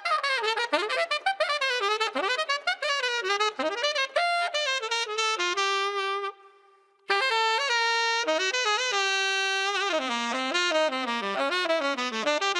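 Tenor saxophone played through a Sugal MB III 3D-printed metal mouthpiece: a jazz phrase of quick runs. It breaks off for about a second around six seconds in, then carries on with held notes and further runs.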